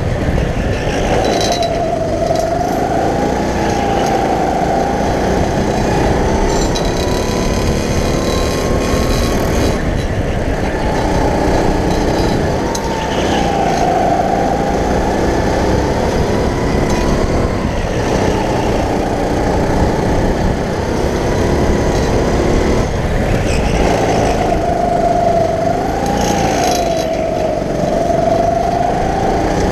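Go-kart engine running hard, heard from the driver's seat; its pitch dips and climbs again as the kart takes corners, about two seconds in, around the middle and near the end.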